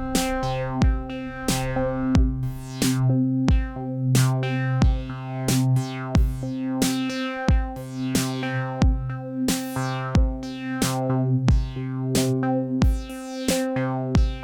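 Techno from a Behringer DeepMind 12 analog polysynth holding sustained chords over a Roland TR-8 drum machine beat, with a steady kick drum about every two-thirds of a second and hi-hat and clap hits between.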